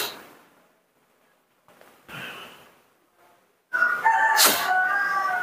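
A sharp tap at the start, then, from a little past halfway, a baby monkey's high-pitched squealing calls, several wavering tones together that run on to the end.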